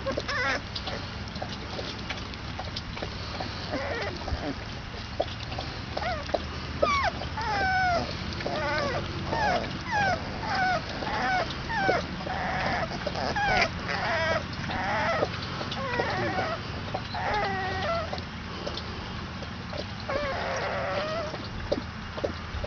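A litter of three-week-old basset hound puppies whimpering and squealing: many short, high cries that slide up and down in pitch, coming thickest in the middle.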